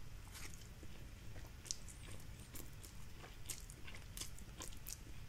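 A person chewing a mouthful of instant fried noodles: faint, with small wet mouth clicks at irregular intervals.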